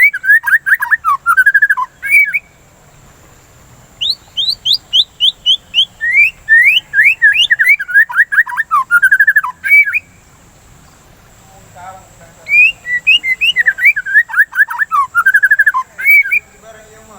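White-rumped shama (murai batu) singing in three bouts of rapid, clear whistled notes, about five a second, with short pauses between the bouts.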